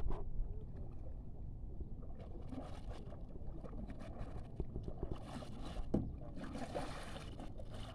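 Kayak paddle strokes swishing and splashing through pond water, three or so strokes a couple of seconds apart, over a steady low rumble.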